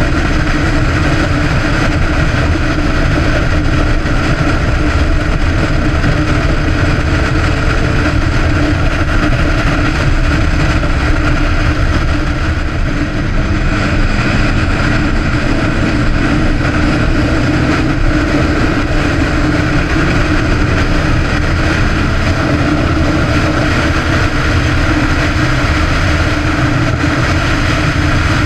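Sport motorcycle engine running at a steady road speed, heard from a camera mounted on the bike, with heavy wind noise over the microphone.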